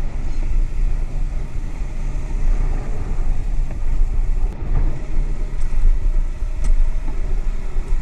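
Motorcycle running at road speed with a steady low rumble.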